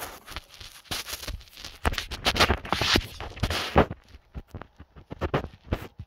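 Scratching and scraping handling noise close to the phone's microphone as the phone is moved and repositioned, then scattered light clicks and taps for the last couple of seconds.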